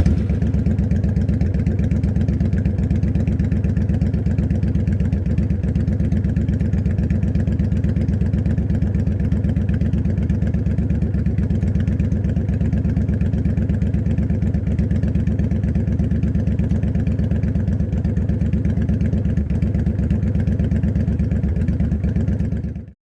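Motorcycle engine idling steadily, just after starting, with a fast even beat, cutting off suddenly near the end.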